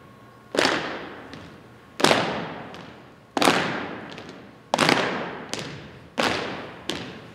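A drill team's boot stomps in unison on a gym floor: five loud strikes about a second and a half apart, each with a long echo, with lighter hits between them.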